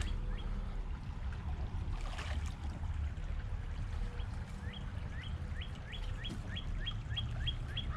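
Creek water running with a steady low rumble. From about halfway through, a small bird calls a quick series of short rising chirps, about three a second.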